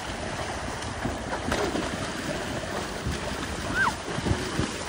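Small waves washing onto a sandy beach and water splashing as people kick through the shallows, with wind rumbling on the microphone.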